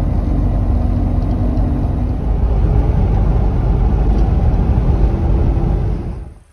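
Mercedes Vario 818 expedition truck driving along a road: a steady rumble of engine and road noise with a faint engine hum, fading out about six seconds in.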